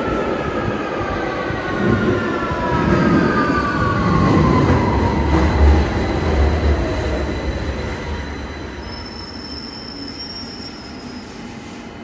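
Victoria Line 2009 Tube Stock train arriving at a platform and braking to a stop. A heavy rumble of wheels on rail is loudest about halfway through, under a whine that falls steadily in pitch as the train slows. The sound then dies away as the train stands, with a thin high tone near the end.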